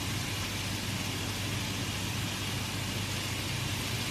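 Steady hiss with a low hum from cooking on a gas hob, where a pan of chorizo and peppers is frying.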